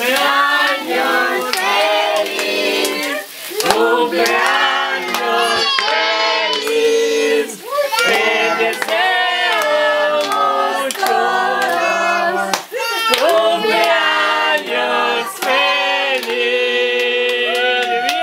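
A group of family members singing a birthday song together and clapping along, ending on a long held note.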